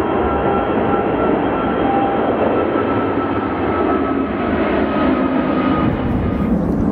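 Airbus A380's four turbofan engines as the airliner climbs low overhead: a loud, steady jet rush with faint whining tones in it.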